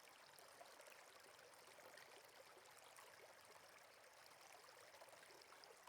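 Faint, steady rush of flowing water, like a stream.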